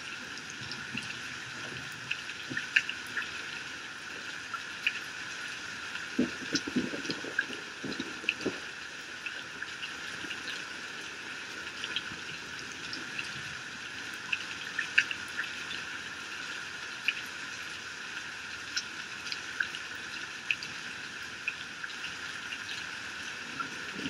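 Heavy rain pouring off a roof edge and splashing on the ground: a steady hiss scattered with sharp drop hits, with a cluster of louder, deeper hits about six to eight seconds in.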